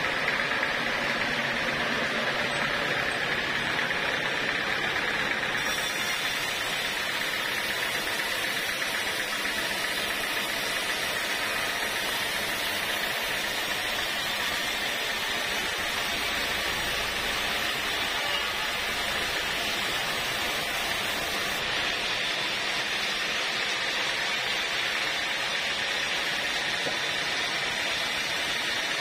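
Sawmill band saw running steadily while its blade rips lengthwise through an acacia log. The cutting noise is brighter and hissier from about five seconds in to about twenty-one seconds in.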